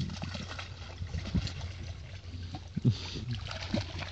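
Fox terrier paddling through water: irregular splashing and sloshing, with a louder splash about three seconds in.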